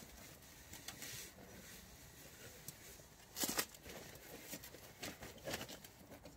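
Spoon stirring chopped beef and vegetables in a metal camping pot, giving faint scrapes and scattered knocks; the clearest knock comes about three and a half seconds in, with a few more near the end.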